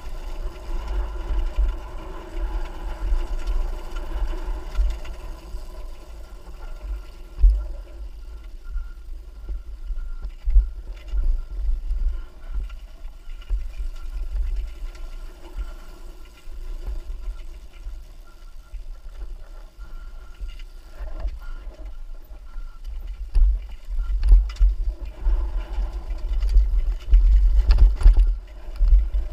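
Off-road trail motorcycle engine running, under heavy wind buffeting on the microphone that comes and goes in gusts and is strongest near the end.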